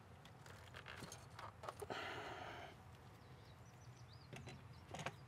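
Faint handling noises from a plastic intake manifold being worked up and out of the engine bay: scattered light knocks and clicks, with a brief rushing scrape about two seconds in.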